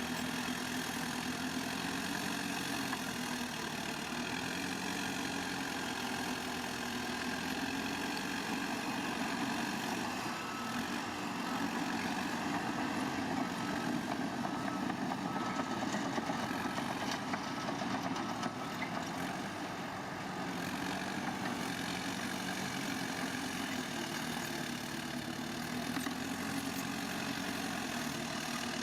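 Diesel engine of heavy earthmoving machinery running steadily, its note wavering a little, somewhat louder for several seconds in the middle.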